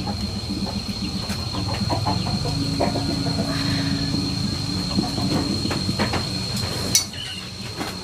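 Food grilling over a fire: a steady low rumble with many small crackles, a steady high tone throughout, and one sharp crack about seven seconds in.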